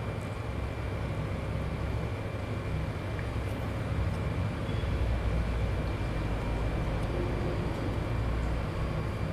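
Steady low background rumble with a faint, thin high whine over it.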